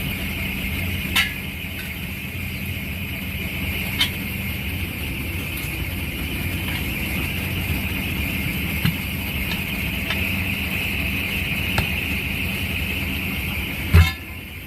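Steady idling engine hum while a semi-trailer tire is levered onto its rim. Occasional light metallic clicks and knocks are heard, with a sharper, louder knock near the end.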